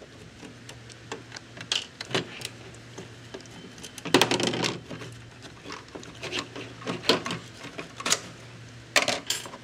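Scattered small clicks and ticks of a Phillips screwdriver backing out small screws and of the hard plastic housing of a Coinco Mag series bill validator being handled, with louder clatter about four seconds in and again near the end.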